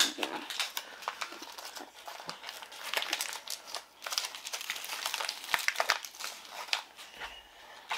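Plastic packaging crinkling and rustling by hand, with irregular sharp clicks, as a Mini Brands blind-ball capsule and its small wrapped toy are opened.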